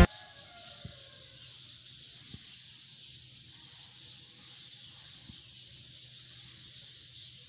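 Outdoor ambience dominated by a steady, high-pitched insect chorus, over a faint low hum and a few soft bumps.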